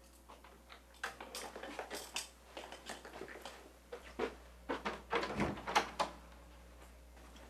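Clothes being handled at a closet: wooden hangers clicking and knocking, with fabric rustling in between. The knocks come thickest about four to six seconds in, with one heavier thump.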